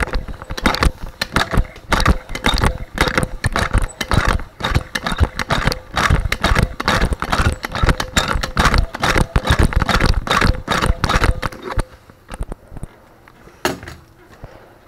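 A hand tool jabbing and scraping at drywall chewed thin by yellow jackets, breaking and crumbling the edge of the hole: a fast, irregular run of scrapes, taps and rattles that stops about twelve seconds in, with one sharp tap near the end.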